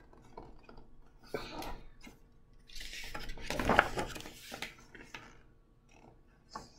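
A picture book's pages being turned and handled: paper rustling with a few light taps, loudest a little past the middle.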